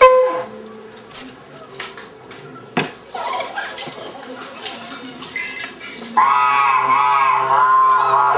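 Scattered clinks and knocks from a stage performance, opening with a sharp strike that rings briefly. About six seconds in, loud music begins: a held, wavering tone over a steady low drone.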